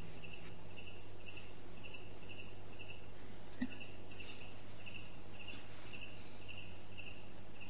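A cricket chirping steadily, short chirps at one pitch about twice a second, over the hiss and low steady hum of an old recording.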